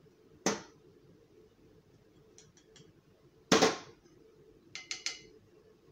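Small glass spice jars knocked and set down on a metal tray: a few sharp clinks, the loudest about three and a half seconds in, then a quick run of ringing clinks near the end.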